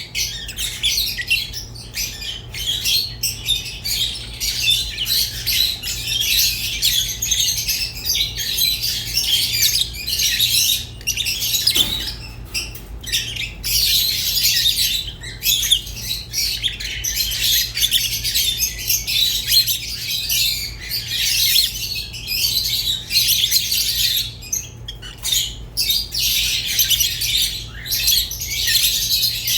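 Pet budgerigars chattering and warbling continuously, with rapid chirps and squawky notes and only brief pauses, over a faint steady low hum.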